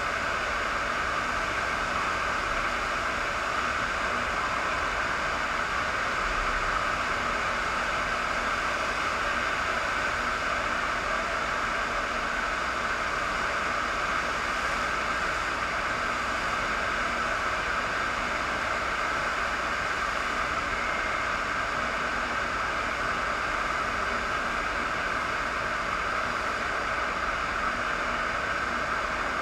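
Steady rushing roar of a thin sheet of water jetting up the slope of a FlowRider surf-wave machine, even and unchanging throughout.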